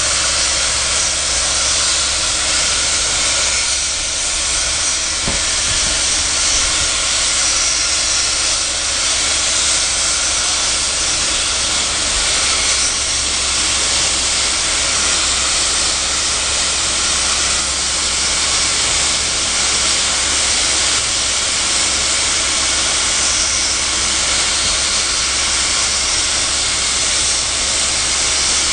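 Loud, steady hiss of steam escaping from NSWGR 59 class steam locomotive 5917 as it stands with the train.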